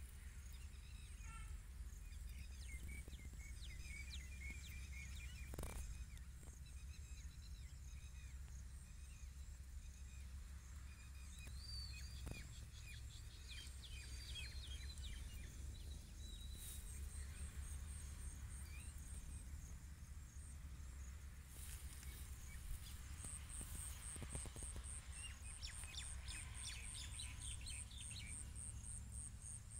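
Outdoor ambience: a steady low rumble with birds chirping on and off. From about two-thirds of the way in, a fast, even, very high-pitched pulsing runs on to the end.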